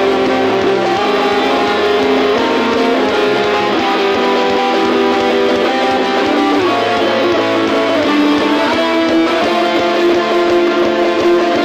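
Electric guitar playing a pop-punk arrangement: strummed, sustained chords with changing notes and a low line underneath.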